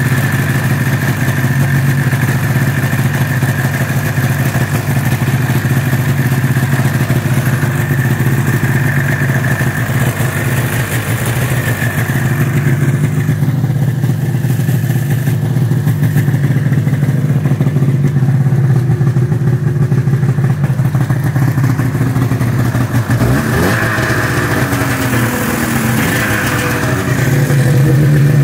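Ski-Doo snowmobile's two-stroke engine running steadily at idle, with a brief shift in pitch about three-quarters of the way through.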